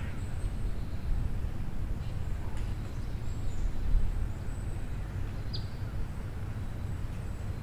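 Outdoor ambience: a steady low rumble with a few faint, short high chirps, the clearest a quick falling one about five and a half seconds in.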